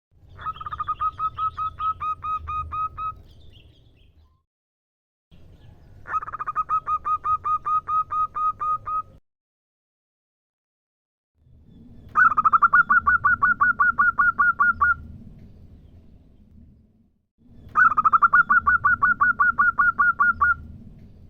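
Female zebra dove (perkutut) calling: four bouts of rapid, evenly repeated short notes, each bout lasting about three seconds with silence between. This chattering call is the one used to draw in male birds.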